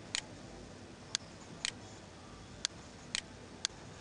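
Faint computer mouse button clicks, single clicks and quick double-clicks about every half second, as folders are opened in a file dialog.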